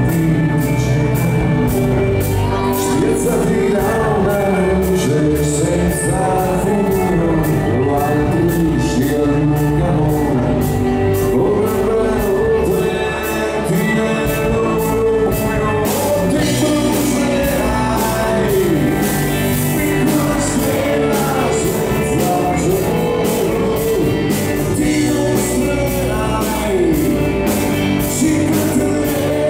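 Live rock band playing, with a male lead singer singing in Italian into a microphone over keyboards, electric guitar and drums keeping a steady beat.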